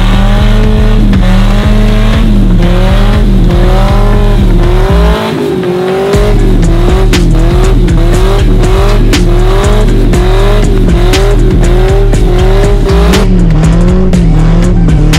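Polaris Slingshot engine held near redline in one gear during a burnout, its pitch rising and falling about every 0.7 s as the single rear tire spins and squeals on concrete. The burnout is wearing down the rear tire.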